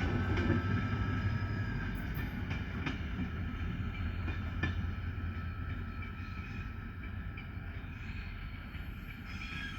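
Diesel-hauled passenger train pulling away: a steady low engine hum that slowly fades, with a few sharp clicks.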